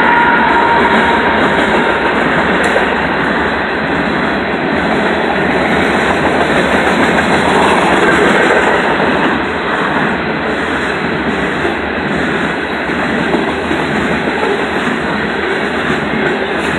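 Freight train of covered hopper cars rolling past: the steady rumble and clatter of steel wheels on the rails, with no break. A horn tone fades out in the first second or two.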